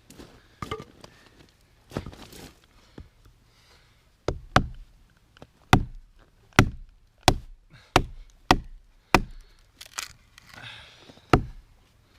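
Axe chopping wood: a few softer knocks, then from about four seconds in a run of about ten sharp strikes, roughly one every two-thirds of a second.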